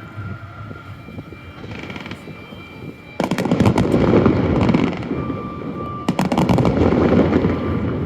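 Fireworks going off: two loud spells of rapid crackling bangs, the first starting suddenly about three seconds in and the second about three seconds later, each lasting under two seconds.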